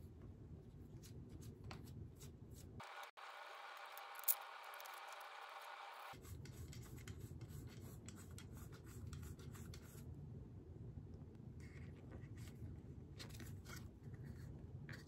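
Faint handling noises: light rubbing and small clicks of parts being handled, over a low steady hum, with one sharp click a little after four seconds in.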